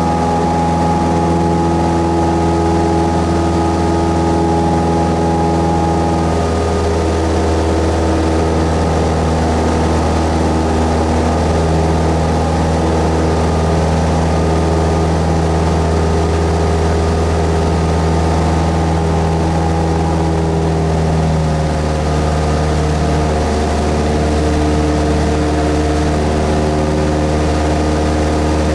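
Cessna 172S's four-cylinder Lycoming engine and propeller running steadily, a loud, even drone whose tone shifts slightly a few seconds in and again a little past the middle.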